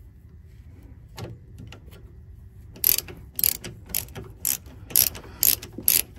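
Ratchet wrench clicking while backing out a bolt at the steering rack. One click comes about a second in, then sharp clicks about every half second from about three seconds in.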